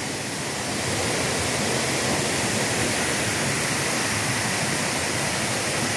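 Waterfall crashing steadily into its pool close by, a dense, even rush of water.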